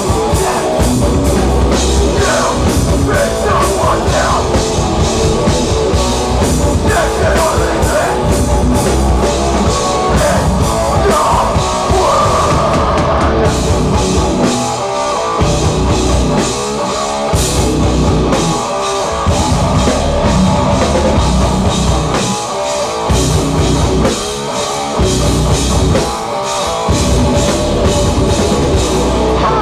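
Hardcore band playing live at full volume, drum kit and guitars. In the second half the music turns stop-start, breaking off briefly about every two seconds.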